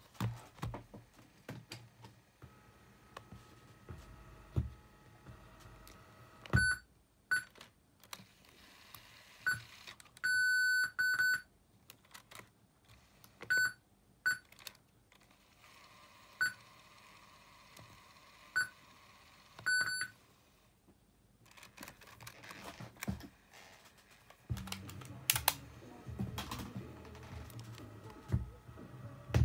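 Sony WM-FX483 cassette Walkman beeping as its front buttons are pressed. About a dozen short, high beeps come at irregular intervals, one of them held longer, with small button clicks and handling between. Near the end louder low sound comes in as tape playback starts.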